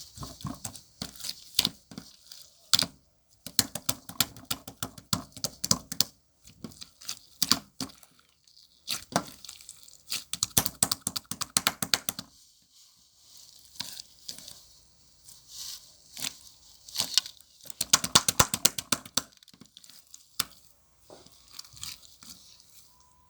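Slime topped with white shaving foam being squeezed and kneaded by hand. It gives bursts of rapid crackling and popping clicks, separated by short pauses.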